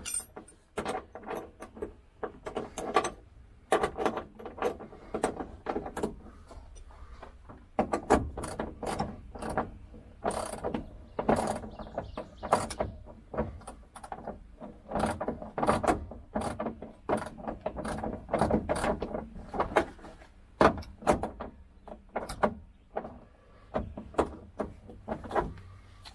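Socket ratchet clicking in quick runs as seat belt anchor bolts are wound down through the carpet into the floor, with short pauses between strokes.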